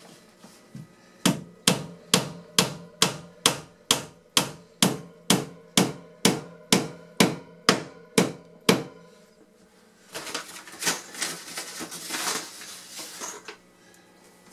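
Hammer driving finishing nails into wooden baseboard trim: a steady run of about eighteen sharp blows, roughly two a second. The blows stop near the middle, and a rough scraping, rustling noise follows for about three seconds.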